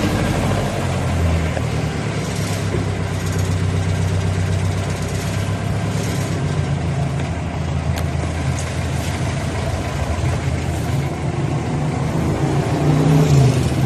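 Jeepney engine idling steadily, a low even hum.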